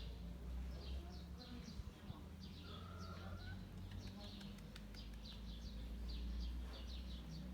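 Small birds chirping in quick repeated short calls, each dropping in pitch, over a steady low rumble.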